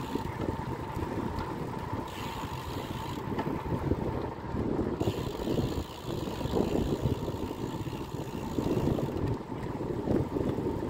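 Wind buffeting a phone's microphone while riding a bicycle: an uneven, gusting rumble, with a thin steady tone underneath.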